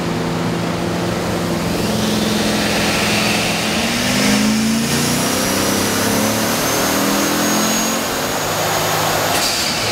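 Turbocharged 6.2-litre LS3 V8 of a 2010 Camaro SS revving up hard, its note climbing in pitch over the first few seconds and then held high, with a thin high turbo whine above it. A brief hiss comes near the end.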